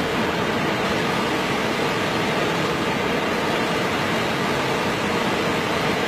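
Fast-flowing water rushing over rocks at a waterfall: a steady, unbroken rush.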